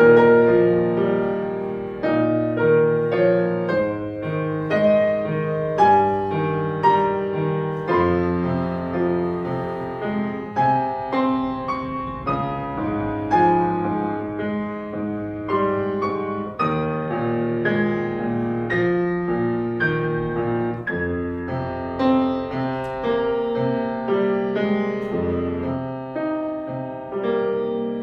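Solo piano playing a slow melody over held bass notes, each note struck and then fading.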